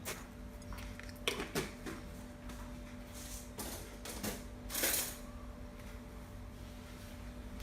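Kitchen handling noises while seasoning is added to chopped fish: a few short clicks and rustles, then a louder hissy rustle about five seconds in, over a steady low hum.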